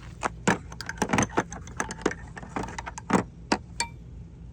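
Metal hand tools clinking and clattering as they are gathered up and put away: an irregular string of sharp metallic clinks, with the loudest about half a second, a second and three seconds in.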